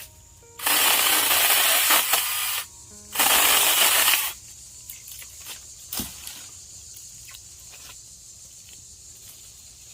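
Battery-powered mini chainsaw cutting through a branch in two bursts, one of about two seconds and a shorter one about three seconds in, each a loud rasping hiss that then stops.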